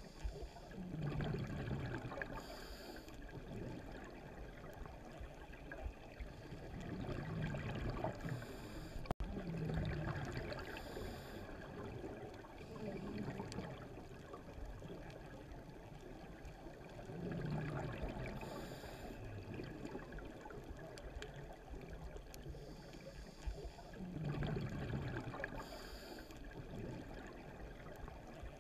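Underwater sound of a scuba diver breathing through a regulator: swells of noisy rumble and short gurgling bursts of exhaled bubbles, repeating every few seconds.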